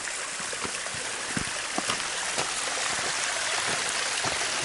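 Small forest creek running over rocks: a steady rushing hiss that grows slightly louder, with scattered crunches of footsteps on loose stones.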